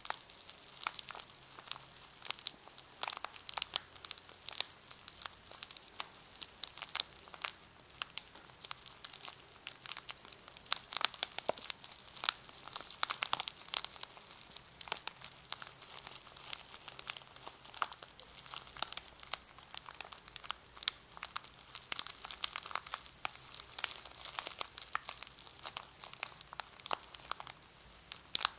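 A packaged brush being handled, its wrapping crinkling in a dense, irregular run of small crackles.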